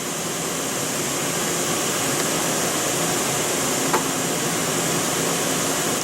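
Steady whooshing noise like a fan or ventilation running, with a faint low hum underneath and a single light tick about four seconds in.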